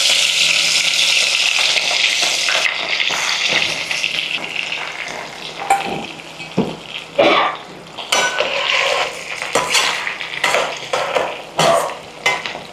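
Boiled, squeezed bitter gourd pieces deep-frying in hot oil: a loud sizzle at first that dies down over the first five or six seconds. Then a series of knocks and clinks of a utensil stirring against the pan.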